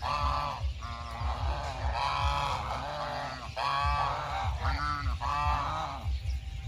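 A flock of domestic geese honking, about eight short nasal calls in quick succession, some overlapping.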